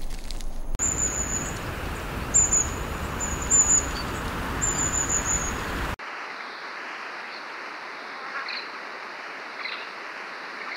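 Nature ambience: a steady background hiss with short bursts of high, thin bird chirping, four times over about five seconds. About six seconds in it changes abruptly to a quieter, thinner hiss with a couple of faint bird calls.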